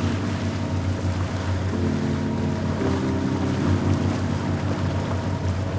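Background music of sustained chords that change every second or so, over a steady low hum and a rushing noise like wind or water.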